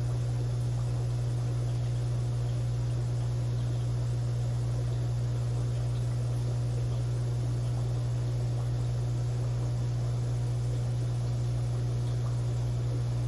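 Aquarium equipment humming steadily: a low, even electric hum with a faint hiss over it.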